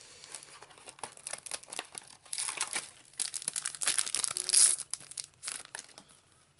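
Plastic trading-card packaging crinkling and being torn open, in crackly bursts through the second half, loudest a little past the middle.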